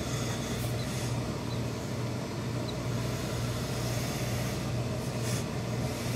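Industrial hose-fed steam iron pressing wool suit trousers over a steady low mechanical hum, with short hisses of steam, the clearest about five seconds in.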